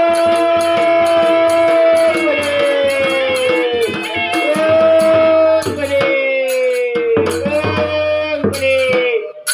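Live folk music: a melody of long held notes, each sliding slowly down in pitch, over a fast steady beat of barrel-drum strokes and a metallic rattle. The music drops away briefly near the end.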